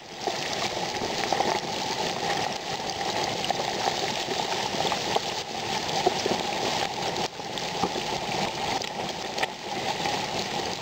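Hot oil in a turkey fryer pot bubbling and sizzling steadily in a dense crackle as a whole turkey is lowered slowly into it, the moisture in the bird cooking off.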